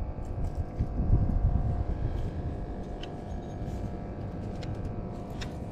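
Steady low rumble with a faint, even mechanical hum under it, and a few light clicks as fishing line and a spinning reel are handled.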